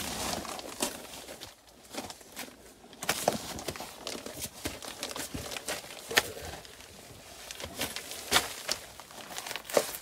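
Plastic sheeting on a crawl space floor crinkling and rustling under people crawling over it, with irregular sharp crackles.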